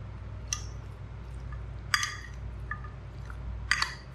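A metal spoon clinking against a glass dish three times, roughly a second and a half apart, each strike ringing briefly, as raw chicken pieces are stirred in a marinade. A low steady hum runs underneath.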